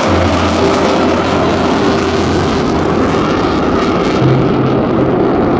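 Jet engine noise from the U.S. Navy F-35C Lightning II's Pratt & Whitney F135 engine, a loud, steady rushing sound.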